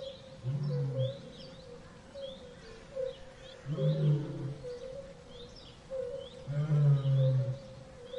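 Big cat growling: three low growls, each under a second long, the middle one about four seconds in the loudest, over birds chirping repeatedly in the background.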